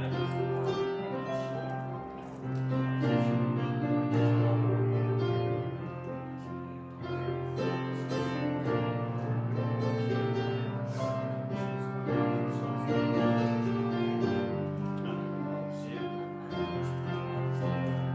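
Instrumental keyboard music: piano-like sustained chords and a melody, played slowly.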